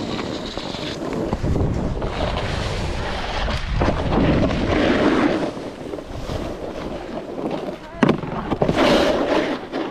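Snowboard sliding and scraping over snow, with wind rushing across the microphone and a sharp knock about eight seconds in.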